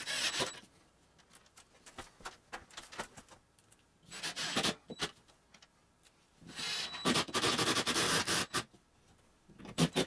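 Cordless power driver running screws into a drywall patch on the ceiling, in short runs: one at the start, another about four seconds in, a longer two-second run from about six and a half seconds, and a brief one near the end. Small clicks and scrapes of handling fall between the runs.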